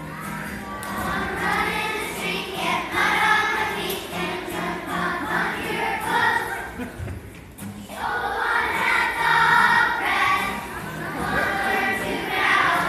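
A choir of young children singing a song together over musical accompaniment, with a short break in the singing about seven seconds in.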